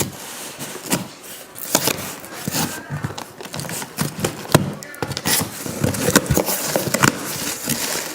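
A package being opened by hand: irregular rustling and scraping of packaging, broken up by many sharp taps and knocks.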